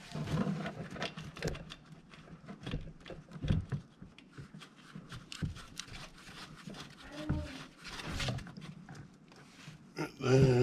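Irregular light clicks and metallic knocks of an oil-pan drain bolt and hand tools being handled as the bolt is threaded back into the ATV engine, with a short low vocal sound about seven seconds in.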